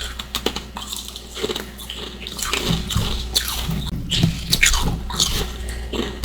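Close-up biting and chewing of freezer frost and ice chunks: a quick, irregular run of crisp crunches.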